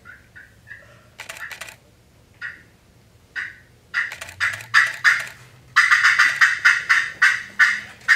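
Friction turkey call imitating a hen's fly-down cackle: a few spaced, sharp clucks, then from about halfway the notes come faster and louder in a quick run.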